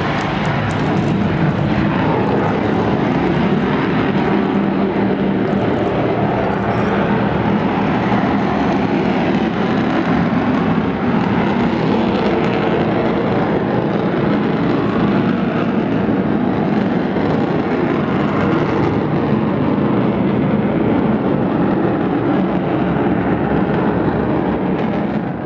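Avro Vulcan's four Rolls-Royce Olympus turbojet engines in flight, a loud, steady jet noise.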